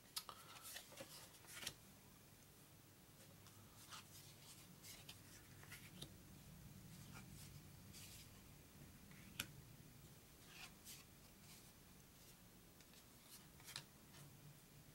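Faint, scattered light taps and rustles of thin cardboard game pieces being handled and laid on a wooden table, over a low steady hum.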